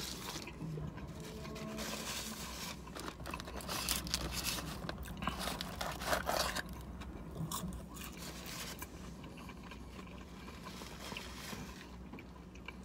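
Close-miked chewing and crunching of a bite of a crispy fried chicken sandwich. About six seconds in, a paper fries carton rustles and scrapes as fries are picked out.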